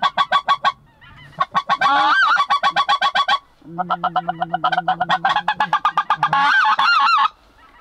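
Goose calling in three long runs of rapid, high-pitched honks, about ten a second, with yodelling rises and falls: the laughing cackle of specklebelly (white-fronted) geese. In the last run a low steady tone sounds beneath the honks for about three seconds.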